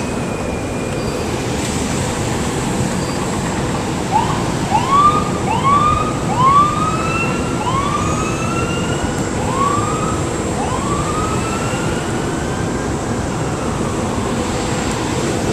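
Ambulance siren sounding a series of rising sweeps, quick at first and then slower, over the steady rolling noise of a SEPTA commuter train passing close by.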